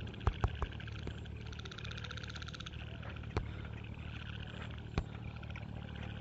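Chorus of frogs giving rapid, pulsing trills that swell and fade, over a steady low hum, with a few sharp clicks, three of them close together near the start.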